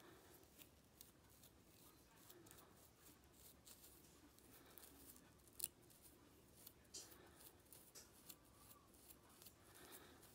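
Faint scratching and clicking of a comb's tail being scraped along the scalp and through hair, lifting thick dandruff scales, with one sharper click about five and a half seconds in.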